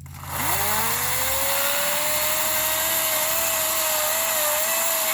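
Chainsaw throttled up from idle about half a second in, its pitch rising and then holding steady at full speed as it cuts through a section of the fallen tree.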